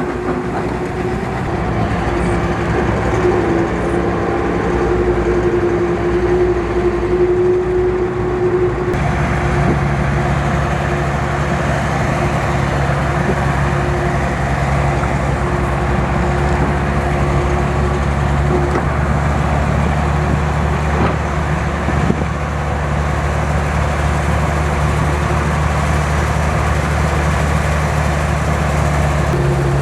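Heavy machinery engines running steadily, with an abrupt change in the engine tones about nine seconds in.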